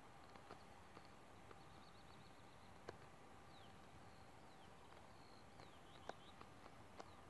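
Faint outdoor ambience: small birds chirping with short, high, falling calls, broken by a few soft clicks over a faint steady hum.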